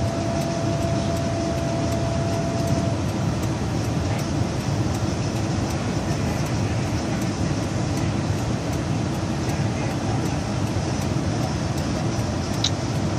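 Steady low noise of a vehicle running, with a faint steady tone during the first three seconds.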